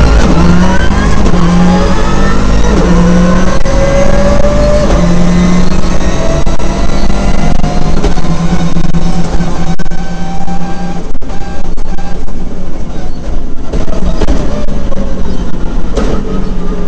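Rally car engine heard from inside the cabin under hard acceleration, its pitch climbing again and again as it pulls up through the gears. About eleven seconds in the sound cuts briefly as the driver lifts off, then picks up again, with road and tyre noise underneath.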